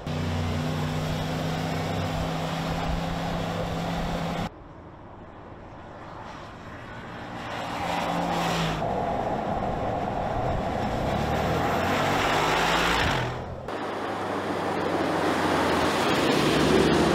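Mercedes-Benz G-Class driving on a paved road: the engine runs with a steady hum over tyre and road noise. The sound changes abruptly about four seconds in, drops quieter and builds back up, then changes again about thirteen seconds in to a louder, deeper rumble.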